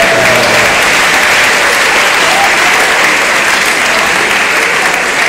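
A large audience applauding loudly and steadily, with a few voices calling out over the clapping.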